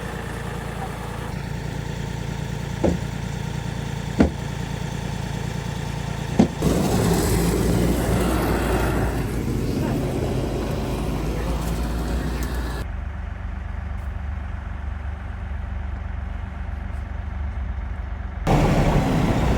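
An engine idling steadily, with three sharp clicks in the first six seconds. About six and a half seconds in, the hum gets louder and rougher.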